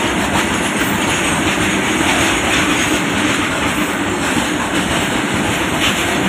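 Long freight train of covered box wagons rolling past, a steady rumble and clatter of wagon wheels on the rails with no break.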